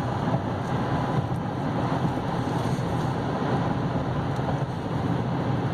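Steady road and tyre noise with a low drone from the V6, heard inside the cab of a 2016 GMC Canyon pickup cruising at highway speed, about 64 mph.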